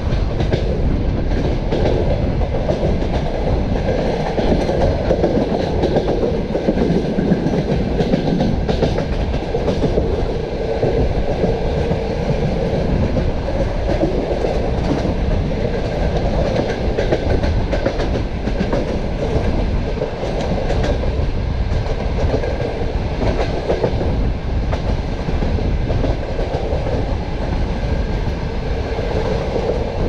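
Passenger train compartment car running at speed along the line: a steady rumble of wheels on the rails with scattered wheel clicks over rail joints, picked up at the carriage window.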